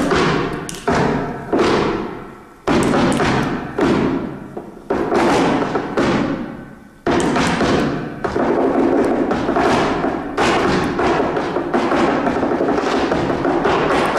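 Flamenco footwork (zapateado): shoe heels and toes striking a wooden stage floor. Single heavy stamps come about once a second, each ringing out, then about halfway through they turn into a fast, unbroken run of strikes.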